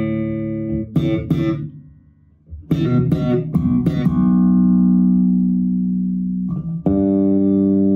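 Six-string electric bass on its humbucker pickup, played through a bass amp. Short, sharp slapped notes come first, then held notes left to ring from about four seconds in, with a new note struck near the end. The tone knob is rolled back to cut the metallic high end of the slap.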